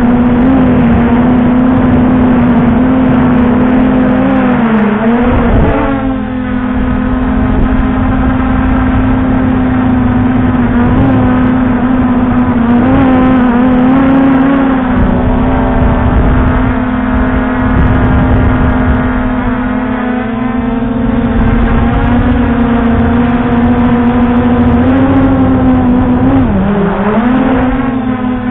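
Brushless motors and propellers of an MJX Bugs 2SE quadcopter, heard from the camera on the drone, buzzing at a steady pitch. The pitch dips briefly as the throttle changes about five seconds in, and again more deeply near the end.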